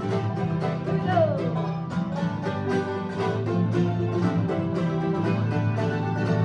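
Bluegrass band playing an instrumental passage with no singing: banjo and guitar picking over a steady bass line. One note slides downward about a second in.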